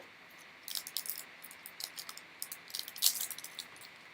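2022 Panini Phoenix trading cards being handled and flipped through by hand: irregular crisp clicks and snaps of card stock, starting about half a second in.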